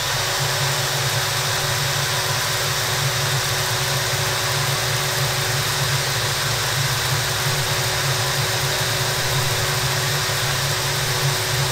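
A Mastercraft cordless drill switches on at the start and runs steadily. It is spinning the shaft of an unpowered brushless RC motor so the motor acts as a generator for a frequency and Kv check.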